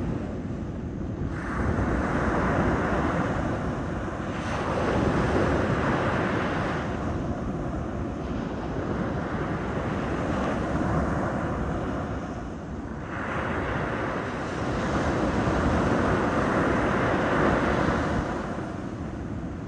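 Sea waves breaking and washing in, the surf surging and easing every few seconds over a steady low rumble.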